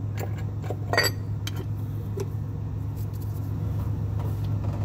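Light metallic clinks of an aluminium rear-main-seal installer tool being fitted onto the crankshaft of a Mack/Volvo engine, a few separate taps with the loudest about a second in, over a steady low hum.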